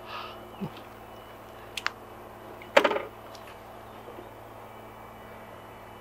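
Bicycle rolling to a stop on a forest path, with a few clicks and a short metallic clatter about three seconds in. Under it runs a steady hum of distant road-construction noise.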